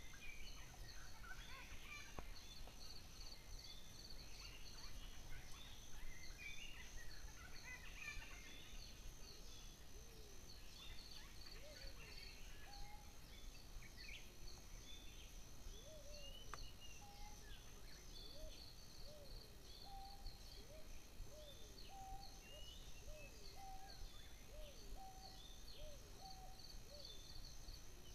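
Wild birds calling in tree canopy: scattered high chirps and twitters, then a low note repeated about once a second from about halfway through, over a steady high hiss.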